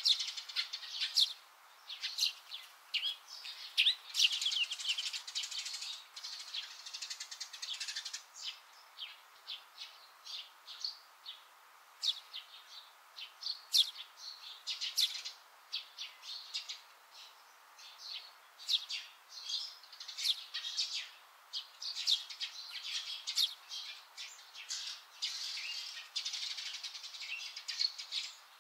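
Small birds chirping: many short, sharp, high calls in quick succession, with busier stretches of rapid chirping.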